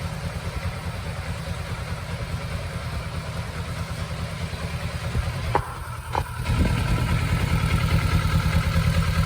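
Motorcycle engine idling steadily with a fast, even low pulse. About five and a half seconds in it drops back briefly with two short ticks, then returns louder.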